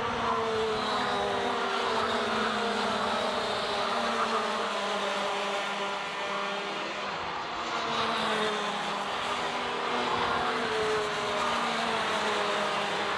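A pack of two-stroke racing kart engines running hard together on track, several high engine notes overlapping, their pitches sliding up and down as the karts pass through the corners.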